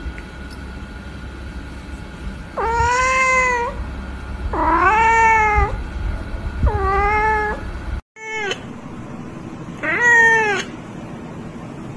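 Domestic cats meowing: three drawn-out meows of about a second each, rising then falling in pitch. After a short break come a brief meow and a longer, louder one.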